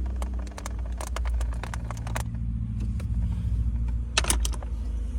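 Car's front seat being pushed back on its track: a run of sharp clicks and knocks, then a louder clatter about four seconds in, over a steady low rumble.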